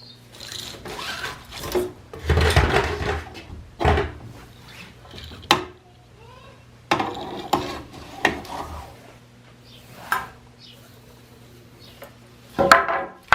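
Handling noise from small objects: irregular clicks, knocks and rustles, the loudest bunch about two and a half seconds in and a sharp click near the end, over a steady low hum.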